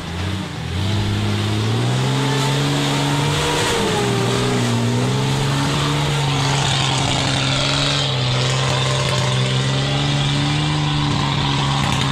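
Off-road 4x4's engine revving hard under load as it climbs a steep, rutted mud track. The pitch rises in the first second, dips briefly about four seconds in, then holds steady at high revs.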